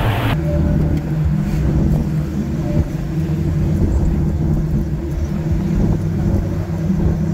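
A car driving at highway speed, heard from inside the cabin: a steady low drone of engine and tyre noise. About a third of a second in, a brighter rush of wind and road noise cuts off abruptly, leaving the muffled drone.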